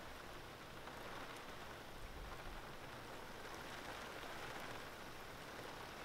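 Steady light rain falling on water and wet grass, a soft, even hiss.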